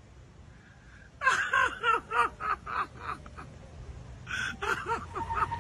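A person laughing hard: rapid bursts of 'ha-ha-ha', each falling in pitch, about four a second. The laughter starts about a second in, trails off, and breaks out again near the end.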